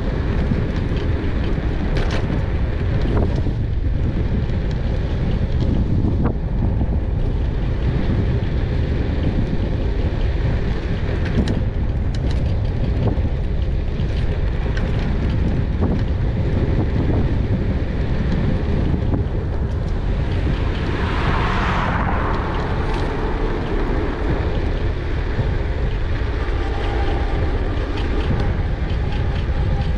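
Wind buffeting a GoPro Hero 8's microphone while riding an e-bike: a loud, steady low rumble with occasional knocks. A brief hiss swells up and fades about twenty seconds in.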